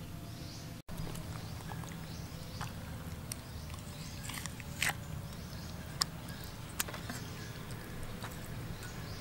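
Hands working a raw squid on a wet wooden chopping block, pulling the head and tentacles out of the body: soft wet handling noises with a few sharp clicks, spaced about a second apart, in the second half. A steady low hum lies under it, and the sound cuts out for an instant near the start.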